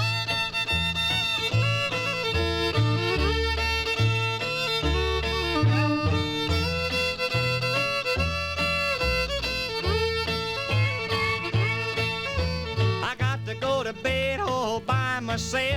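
Instrumental break of a 1953 honky-tonk country record played from a 78 rpm shellac disc. A lead melody of held notes with sliding pitch runs over a walking bass that steps out a steady beat.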